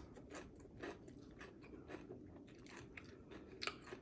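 Faint sounds of someone chewing and biting food, with soft irregular crunches and clicks; the sharpest one comes about three and a half seconds in.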